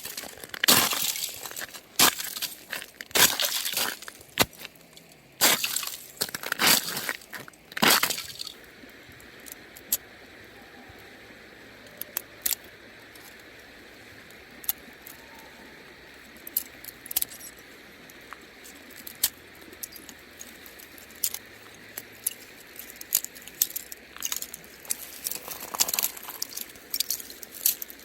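Frozen stream ice cracking and crunching underfoot as it is stepped on and broken: a run of loud sharp cracks and crunches for about the first eight seconds, then only scattered faint clicks and ticks of ice.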